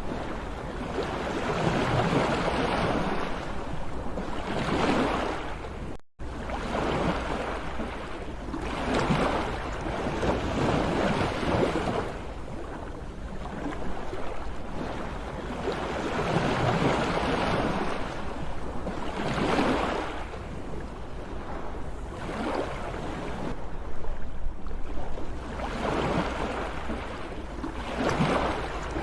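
Sea surf: waves breaking and washing in, rising and falling in surges every few seconds. The sound drops out for an instant about six seconds in.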